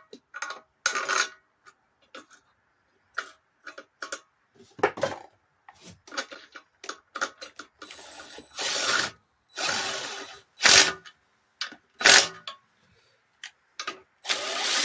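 Hand tools and metal parts clicking and clinking as bolts are fitted on a scooter engine: many sharp separate clicks and knocks, with a few longer bursts of harsher scraping noise in the second half.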